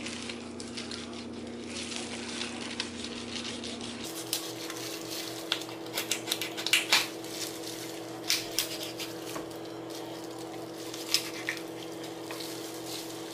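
Kitchen knife cutting out a raw chicken's backbone on a cutting board: scattered clicks and knocks of the blade against bone and board, more of them from about four seconds in. A steady hum sits underneath.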